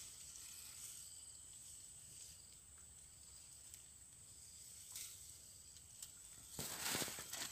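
Quiet pond-bank ambience: a faint, steady high insect drone with a few faint clicks, then rustling and handling noise in the grass starting near the end.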